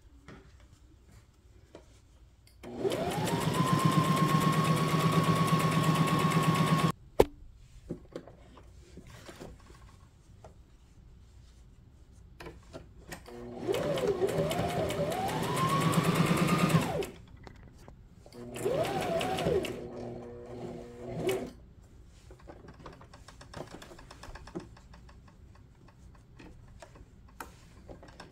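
Brother SM2700 sewing machine stitching in three runs. The first lasts about four seconds, its motor whine rising and then holding steady, and ends with a sharp click. Two shorter runs follow, speeding up and slowing down as the sewer works the fabric forward.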